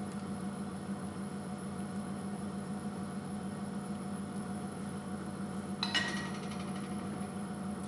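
Cookware clinking once, a sharp ring about six seconds in, as a utensil or lid strikes the pan of simmering cream sauce with fettuccine. Under it runs a steady low hum.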